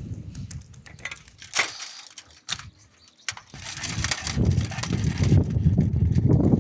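Low wind rumble on the microphone that swells in the second half, with a few sharp clicks and crackles from handling before it.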